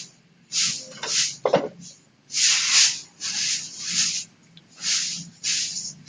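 Repeated short scraping strokes, roughly two a second, with a brief thud about one and a half seconds in.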